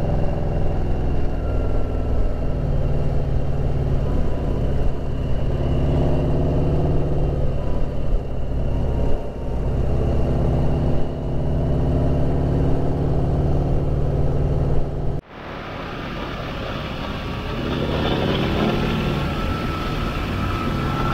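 Motorcycle engine running steadily at cruising speed, with road and wind noise. About fifteen seconds in the sound cuts off abruptly and gives way to a quieter mix of wind and engine noise.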